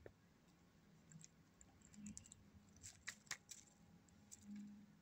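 Near silence: faint room tone with a low hum and a few faint clicks about three seconds in.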